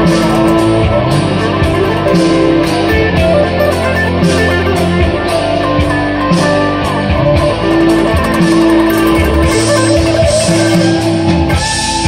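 Electric guitar played through a Framus Dragon amplifier: a continuous improvised run of picked notes, with some single notes held for about a second.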